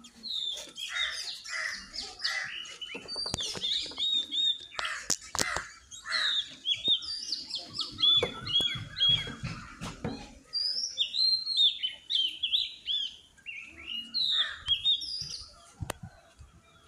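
Small birds chirping and singing: rapid runs of short, high, hooked notes repeated over and over, with a few sharp knocks in between.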